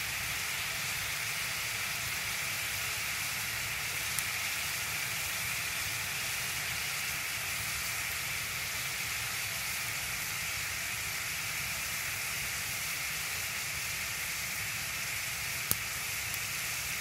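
Steady, even hiss with no change throughout, and two faint clicks, one about four seconds in and one near the end.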